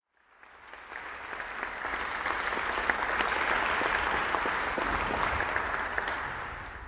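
Audience applauding. It swells in over the first second or so and dies away near the end.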